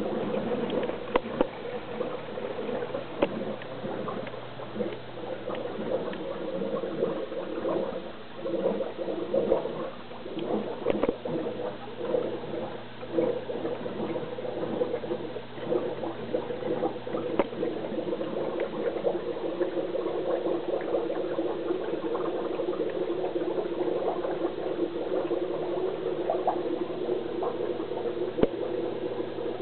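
Via Aqua VA750 canister filter running with a steady hum, water and air gurgling and popping irregularly inside it as trapped air works out after cleaning.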